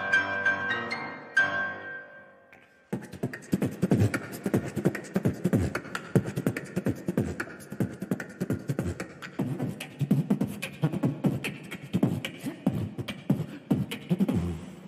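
Orchestra music ends about two seconds in. After a brief pause, vocal beatboxing starts into microphones: a fast, dense stream of mouth-made kick, snare and hi-hat sounds that stops just before the end.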